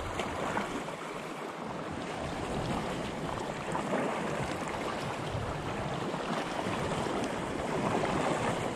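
Small sea waves washing at the water's edge, with wind on the microphone; a steady wash that swells a little near the end.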